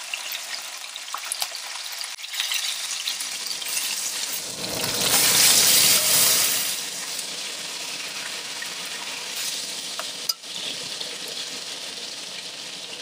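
Hot peanut oil sizzling steadily around a pancetta-wrapped pheasant browning in a pot. The sizzle swells much louder for a couple of seconds around the middle, then settles back.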